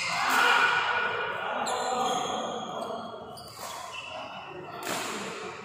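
Badminton doubles rally: rackets striking the shuttlecock, a sharp hit every second or so, echoing in a large sports hall.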